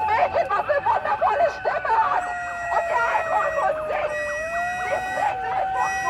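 A long siren-like wailing tone that slowly sinks in pitch and rises again about four seconds in. Shouting voices overlap it during the first two seconds.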